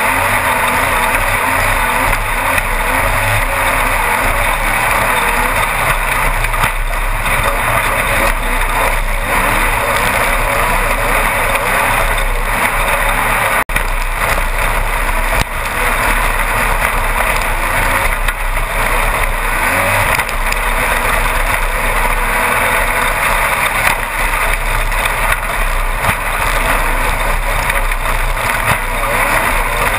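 Onboard sound of a Class 1-1600 off-road racing buggy driving at speed, its air-cooled 1600 cc VW engine running loud and steady. There is a brief dropout about fourteen seconds in.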